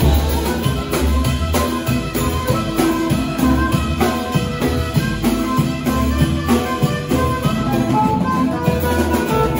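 Live band playing an instrumental passage: saxophone carrying held notes over a drum kit, acoustic guitar and bass guitar.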